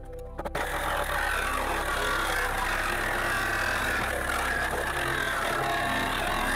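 Cordless reciprocating saw with a wide blade running as it cuts a straight line through a van's sheet-steel side panel, starting about half a second in.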